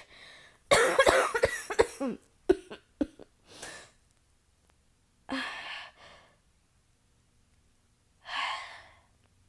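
A woman's coughing fit: a rapid run of harsh coughs about a second in, then a few single coughs. Two long breathy exhales follow, one in the middle and one near the end.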